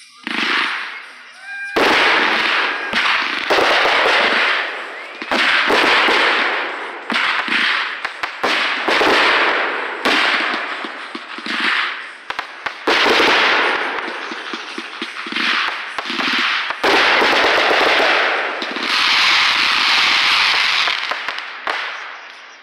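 Consumer fireworks from a multi-shot cake firing in a rapid barrage: a quick string of sharp bangs from launches and bursts, one close after another, starting about half a second in.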